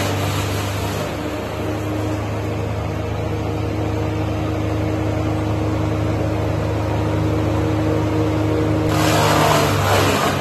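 Diesel engine of a trailer-mounted wood chipper running steadily under power. A broad rush of wood being chipped and blown out of the chute fades about a second in, leaving mostly the engine hum, and comes back near the end.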